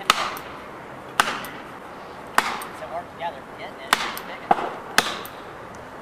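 Hammer blows driving plastic felling wedges into the back cut of a large tree, about six sharp strikes a second or so apart, to lift and tip the trunk for felling.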